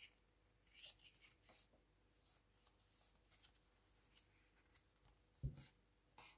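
Faint rustling and scraping of a paper card insert being lifted out of an AirPods box, with a soft thump about five and a half seconds in.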